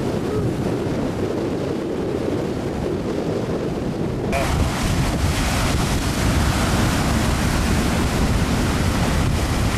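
Heavy surf breaking and washing, with wind buffeting the microphone. About four seconds in, the sound changes abruptly to a louder, hissier rush of wind and water.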